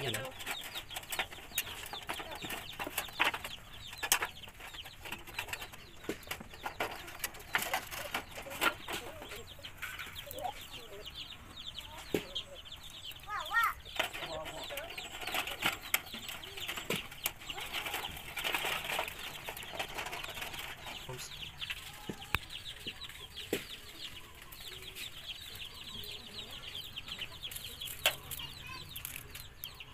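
Chickens clucking, over short light clicks and scrapes of thin wire being twisted through a galvanized iron sheet.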